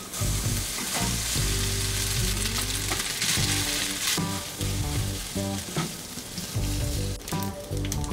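Food frying in a pan, a steady sizzle loudest a few seconds in, with background music.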